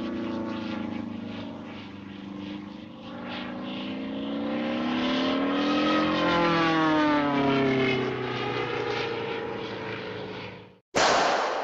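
Cartoon sound effect of a propeller aircraft engine droning, its pitch swelling upward partway through and sinking back down. The drone stops short and a brief, loud burst of noise follows near the end.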